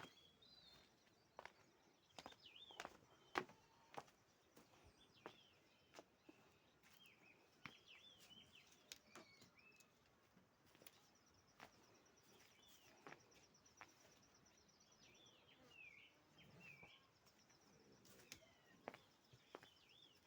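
Faint outdoor birdsong: scattered short chirps and calls throughout, with a fast, even high-pitched trill in the middle and again near the end, and occasional sharp clicks.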